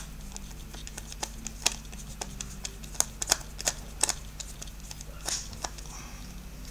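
Phillips screwdriver backing a screw out of the cord clamp on a plastic electric-jug base: irregular small clicks and scrapes of the tip and the plastic base being handled.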